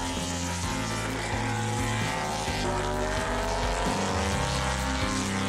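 MotoGP racing motorcycle engine running at high revs as the bike goes along the track. Its pitch dips over the first second or two and then rises again.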